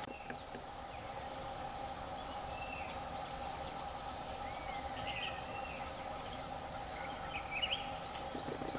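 Forest ambience: a steady insect drone with scattered short bird chirps. The chirps come in a cluster about halfway through and again near the end.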